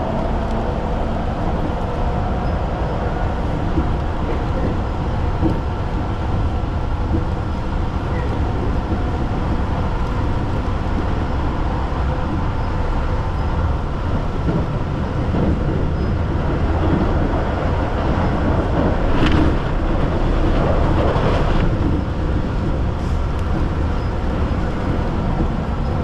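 Keihan electric commuter train running between stations, heard from inside the carriage: a steady rumble of wheels on rails with a faint hum above it, and a louder rattling stretch about 19 seconds in that lasts a few seconds.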